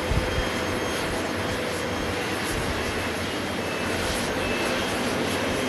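Boeing 737-500's CFM56 jet engines running during pushback: a steady rush with faint high whining tones over an uneven low rumble.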